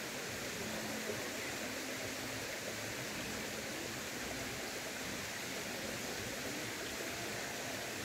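Mountain stream running steadily, an even rushing of water with no breaks.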